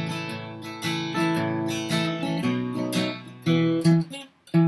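Cutaway steel-string acoustic guitar, flatpicked, playing a bluegrass lick of single notes and chord tones, with a brief break just before the end. The lick is played all in closed position with no open strings, which the player says makes the sound die and cut off between phrases.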